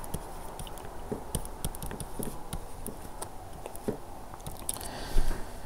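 Light taps and scratches of a stylus writing on a pen tablet, as scattered short clicks over a low room hiss.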